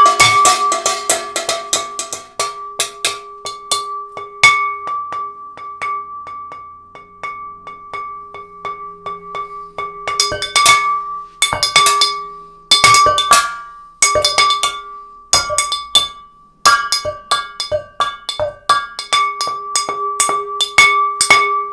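Percussion improvised on household objects: runs of quick strikes, with one object ringing on at a steady high pitch between the hits, with short pauses between runs.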